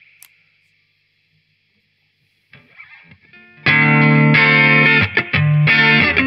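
Electric guitar (Harley Benton TE-52) on its neck pickup, played through the Harley Benton American Sound amp-simulator pedal with a Mooer Yellow Comp compressor switched on, into a valve amp's clean channel. Only a faint fading hiss at first, then loud, compressed chords start about three and a half seconds in, with short breaks between them.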